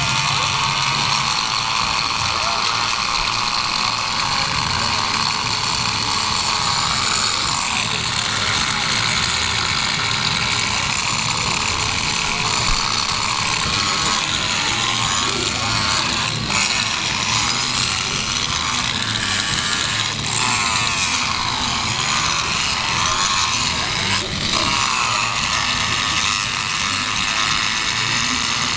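Angle grinder running continuously, its disc grinding against metal plates on a performer's costume and throwing sparks: a steady high whine and rasp whose pitch wavers now and then as the disc is pressed on and eased off.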